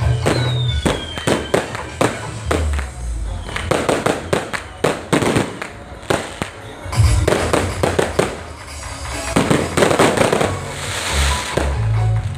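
Fireworks bursting and crackling in quick succession, with a brief falling whistle near the start, over loud music with a heavy bass.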